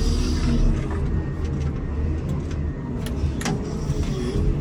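Komatsu WA270 wheel loader's diesel engine running steadily, heard from inside the cab, with a couple of sharp knocks a little past halfway.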